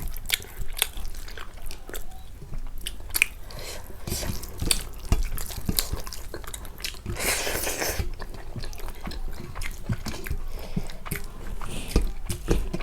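Close-up eating sounds: chewing, with many short wet mouth clicks and smacks as a meal of rice and pork fry is eaten. A longer noisy rush about seven seconds in.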